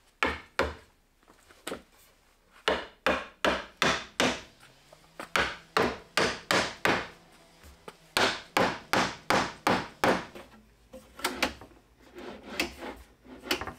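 Wooden mallet knocking a walnut bumper strip down onto a glued plywood edge: a long run of sharp wooden knocks, about three a second, with short pauses. Near the end come softer scraping knocks as a drawer slides open on its metal runners.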